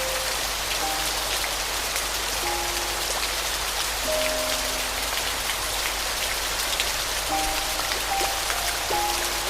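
Steady rain falling on a surface, an even hiss with fine raindrop ticks, under soft, sparse piano notes; a handful of notes sound early on and a small cluster comes near the end.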